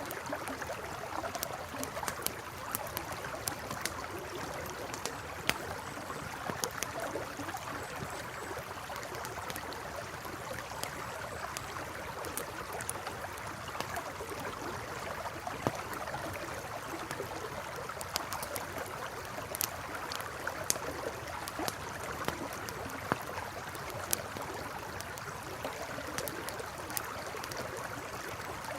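Campfire crackling, with irregular sharp pops and snaps, over the steady rush of a flowing river.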